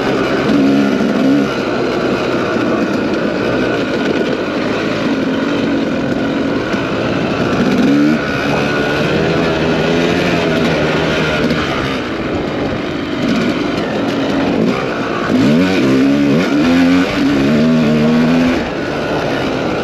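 Off-road racing motorcycle engine revving up and down through the gears, its pitch climbing sharply twice, around eight seconds in and again near sixteen seconds, over a steady rushing noise.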